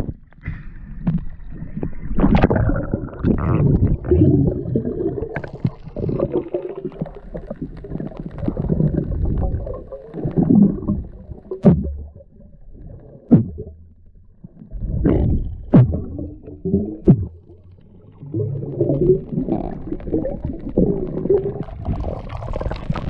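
Muffled sea water heard from a camera underwater: an uneven low rumbling and gurgling, with several short sharp knocks in the second half.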